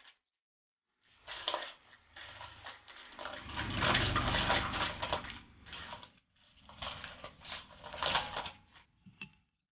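Crab legs and shrimp being tossed in thick chili marinade in a stainless steel bowl with a rubber spatula: wet squelching, and shells and spatula scraping and knocking against the bowl in uneven strokes, with a short pause about six seconds in.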